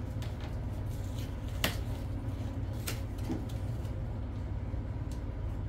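Steady low hum, with a couple of light clicks about one and a half and three seconds in.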